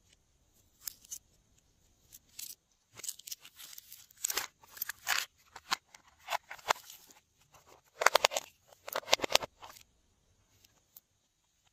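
Hard plastic toy case being handled: fingers tap and click on its plastic surfaces and catch, in irregular bursts, with a quick run of clicks about eight seconds in.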